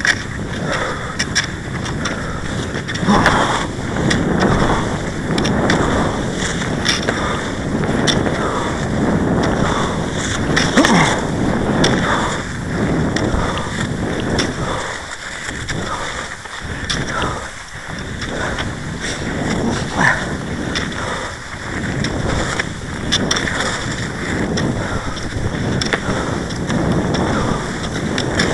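Cross-country skis sliding in a groomed classic track, with repeated scraping bursts from strides and pole plants, over wind noise on the microphone.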